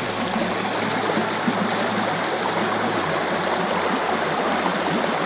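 Fast, turbulent river water rushing steadily close by.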